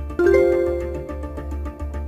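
Background music with a steady beat. About a quarter second in, a bright electronic chime of several tones rings out and fades over about a second: the online auction's alert for a new bid.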